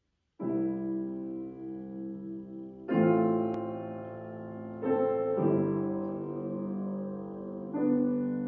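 Bösendorfer grand piano playing a slow introduction of chords, each struck and left to ring and fade before the next, about five chords in all, beginning about half a second in.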